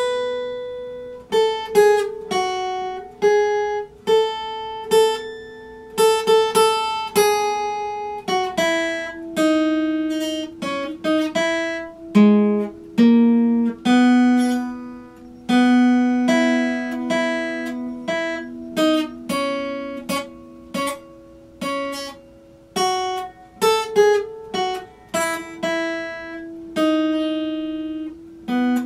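Solo acoustic guitar played by hand: a slow, unaccompanied picked melody of single notes that ring on, with the odd chord and a held low note underneath.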